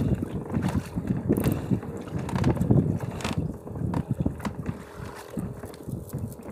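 Wind rumbling and buffeting on the microphone aboard a small fishing boat at sea, with a faint steady hum beneath.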